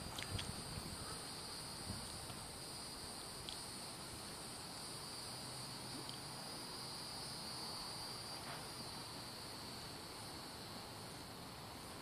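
Cicadas droning, a steady, even high-pitched buzz.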